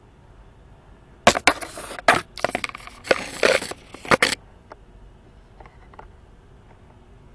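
Bare tree branches and twigs scraping and crackling against the camera as it is pushed through them, with sharp snaps among the scraping. The loud burst starts about a second in and stops abruptly about three seconds later.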